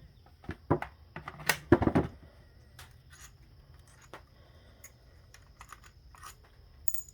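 Scattered light clicks and taps of bolts and hand tools being handled while a transmission valve body is unbolted. There are a few louder knocks in the first two seconds, then softer, irregular ticks.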